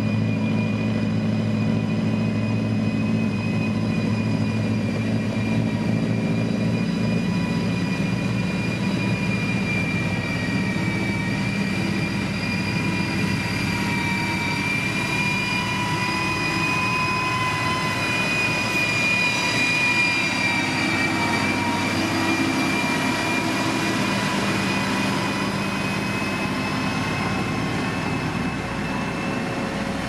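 SANY motor grader's diesel engine running steadily as its blade spreads gravel, with a steady high-pitched whine over the engine note. The deep engine hum eases about eight seconds in, while the whine grows a little louder toward the middle.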